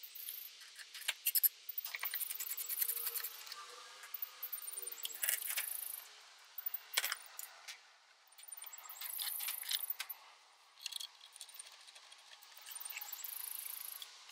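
Light metallic clicking and jingling from hand tools and small parts being handled at the car's radiator support, in spells of a second or two with single sharp clicks between.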